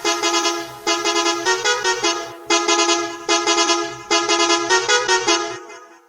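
Bus horn sound effect chopped into a rhythmic remix: about five phrases of rapid, stuttering repeated honks over a faint low beat, fading out near the end.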